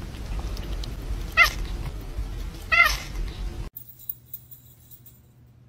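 A cat meowing twice, short calls about a second and a half apart, over a steady low rumble. The sound then cuts off abruptly to a much quieter faint hum.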